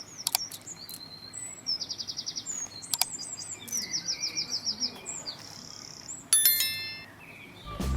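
Small birds chirping, with two fast high trills of about ten notes each and a few short chirps between them. A couple of sharp clicks are heard, and a bright bell-like ding rings out about six seconds in.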